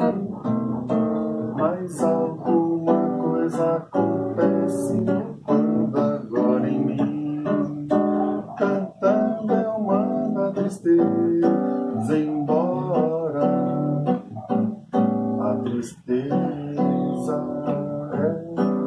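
A man singing a samba while accompanying himself on an acoustic guitar, with chords strummed and plucked.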